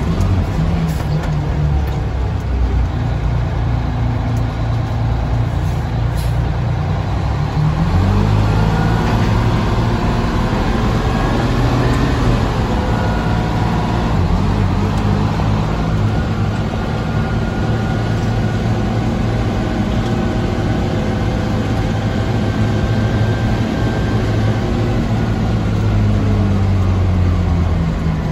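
Fire engine's engine running while driving, heard from inside the cab. The engine note rises as it accelerates about eight seconds in, holds steady, and eases off near the end.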